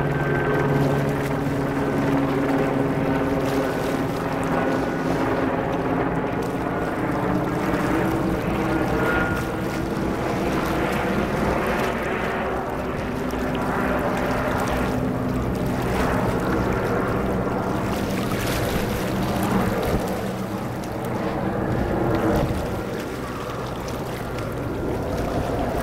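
A steady motor drone, a running engine with several held tones that shift slowly in pitch.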